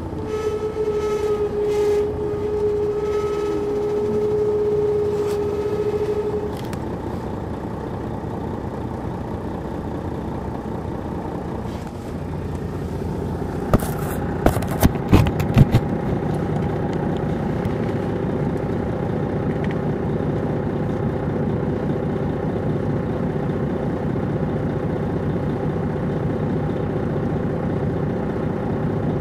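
Detroit Diesel Series 60 inline-six diesel of a 2002 MCI D4500 coach running steadily, heard from inside the bus. A steady high whine stops about six seconds in, and a few sharp clacks come about halfway through.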